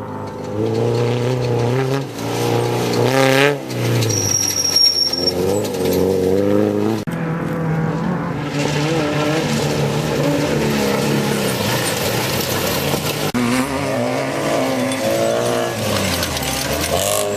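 Off-road race vehicle engines running hard. Their pitch rises and falls again and again as they rev and pass.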